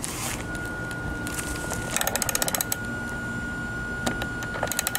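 Socket ratchet wrench clicking in quick runs, twice, as it is swung back and forth on a skateboard truck's kingpin nut to loosen it.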